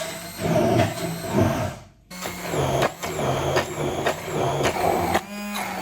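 Electric blender blending chunky tomato pizza sauce. The motor runs in pulses, stops for a moment about two seconds in, then starts again, its hum stepping up and down in pitch as the blades work through the onion and garlic pieces.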